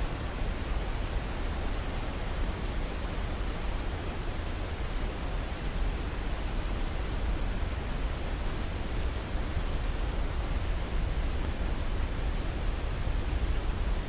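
Whitewater rapids below a small waterfall, rushing steadily. The water makes an even wash of noise with a deep rumble underneath.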